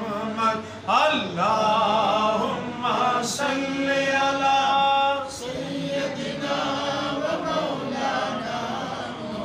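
A man singing a naat unaccompanied, drawing out the melody in long held notes with slides in pitch between them.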